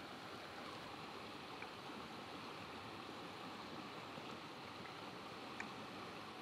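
Faint, steady rush of the Metolius River flowing, with a couple of tiny ticks.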